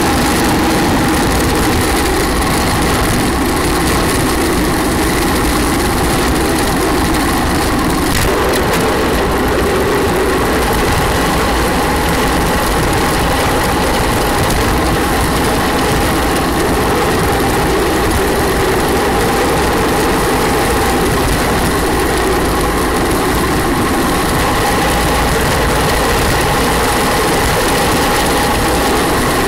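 Steady road roar from an engineless gravity-racing car coasting downhill at speed: its wheels rolling on asphalt and the chassis vibrating, with a faint steady whine running through the noise.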